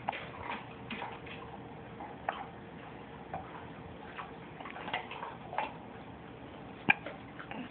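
A baby hiccuping over and over: short, soft hiccups about once a second, with a sharper one near the end.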